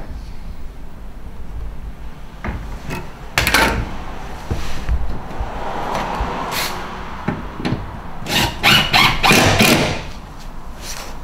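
Hand tools being handled and set down: scattered sharp knocks and clatter, with a scrape in the middle and a quick run of knocks near the end.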